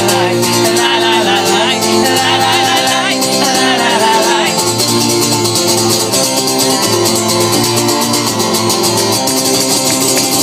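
Live acoustic song: strummed acoustic guitar under the wordless 'la la la' chorus, the singing fading out about halfway through while the strumming carries on.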